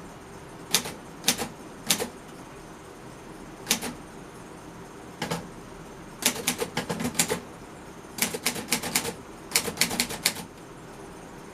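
Underwood Finger-Flite Universal manual portable typewriter being typed on, its type bars striking the paper with sharp clacks. A few keys are struck singly and spaced out, then come three quick runs of keystrokes.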